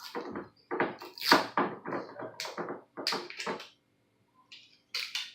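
Handling noises: a quick run of crackles and knocks for the first few seconds, then a couple more near the end.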